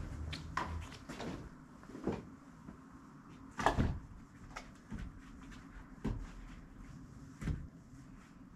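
Split firewood logs being stacked in a woodshed: a quiet, irregular series of wooden knocks and clunks as the logs are set down, the loudest a little under four seconds in.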